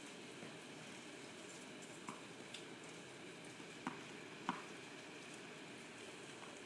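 Faint steady outdoor background hiss with a few short soft taps, the two loudest close together about four seconds in.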